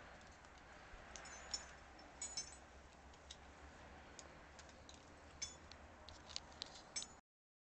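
Light metallic clinks and ticks of climbing hardware, such as carabiners on a harness, jangling at irregular moments. The sound cuts out abruptly near the end.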